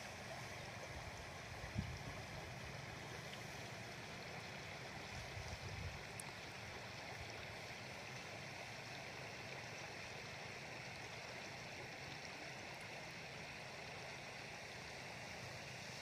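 Shallow river water rippling over a pebble bed: a steady wash of running-water noise. Low wind buffeting on the microphone comes and goes in the first few seconds, with one brief low bump about two seconds in.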